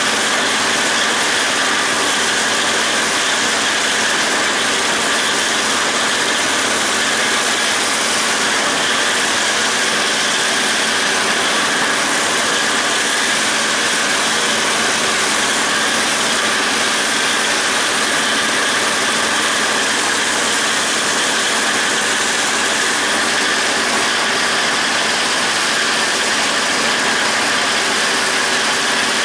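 John Deere 5320 tractor's diesel engine running steadily under load while powering a John Deere 270 disc mower cutting standing grass. The mower and engine make a continuous, even mechanical drone with a constant whine in it and no change in pace.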